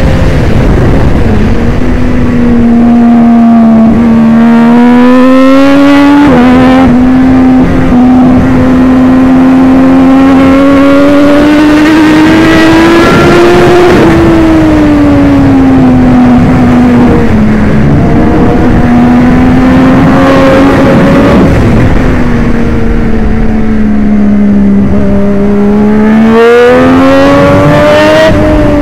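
Triumph Daytona 675 race bike's three-cylinder engine at racing speed, its note climbing and falling as it accelerates and slows. There are sudden steps in pitch at gear changes, one about six seconds in and another near the end, over a steady rush of wind noise.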